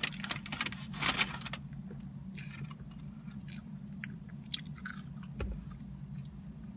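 A person chewing a mouthful of cheeseburger, with a loud crackly rustle in the first second and a half, then quieter wet mouth clicks. A steady low hum runs underneath.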